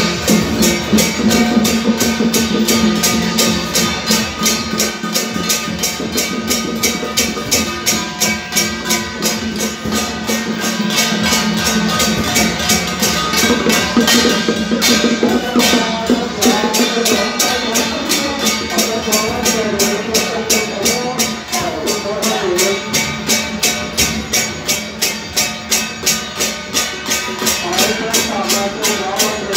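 Temple procession percussion band, drums and cymbals beating a fast, steady rhythm, with a wavering melody line joining about halfway through.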